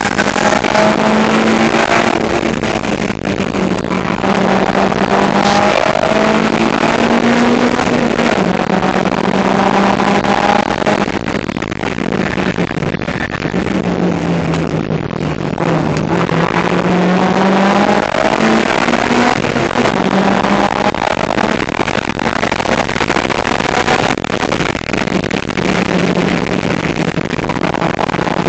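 Suzuki Swift Sport's engine being driven hard, its pitch climbing and falling repeatedly as it revs and eases off, under a heavy rushing noise of wind and road.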